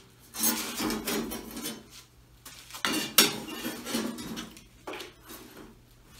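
Metal clinking and clattering in three bouts: small steel butt-weld clamps and sheet-steel patch pieces handled on a steel workbench top.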